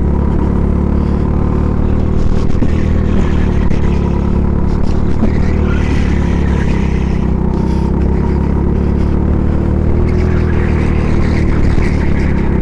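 Go-kart engine running under load, heard from the driver's seat, a steady drone that changes little in pitch.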